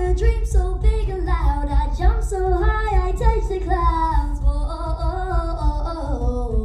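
A young girl singing a song through a PA system, holding and sliding between notes, with a heavy low rumble running underneath.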